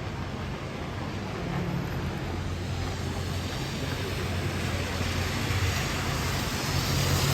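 Busy city street traffic in the rain: a low rumble of vehicle engines over a steady hiss of tyres on wet road, growing louder toward the end.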